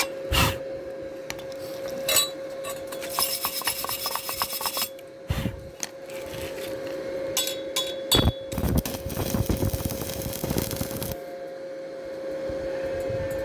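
Rasping and scraping on steel tube, with a few sharp knocks and a steady hum throughout.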